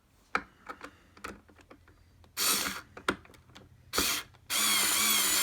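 Hyper Tough 4-volt cordless screwdriver motor whirring in short runs while driving a screw into wood, with small handling clicks first and a longer run of about a second near the end. The clutch is set to 1 yet does not slip, and the screw strips out the wood.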